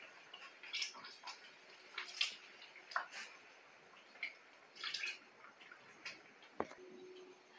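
Milk poured from a plastic jug into a pot of thick canjica, heard as faint, irregular splashes and trickles, with a light knock near the end.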